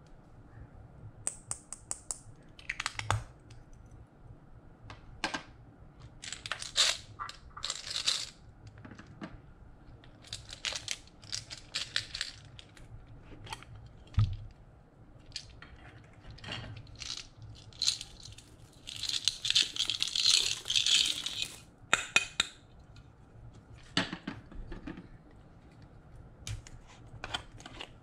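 Small plastic pots of glitter, beads and sequins being clicked open, tapped and shaken out onto slime in a glass dish: a scattered run of sharp clicks and taps, with a longer rattle of beads pouring out about two-thirds of the way through.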